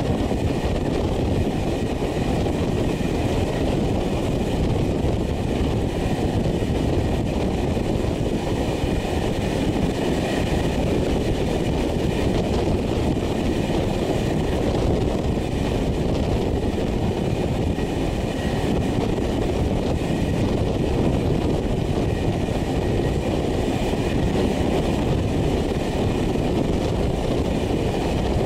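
Steady running noise of a passenger train rolling along the track at speed, heard from an open carriage window.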